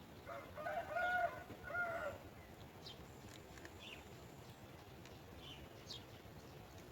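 A bird call in two pitched parts, the first longer, in the first two seconds, followed by a few faint, short high chirps.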